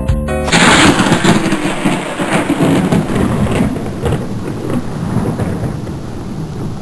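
A thunderstorm: a loud peal of thunder starting about half a second in and rolling off slowly over steady rain, just as the acoustic guitar music ends.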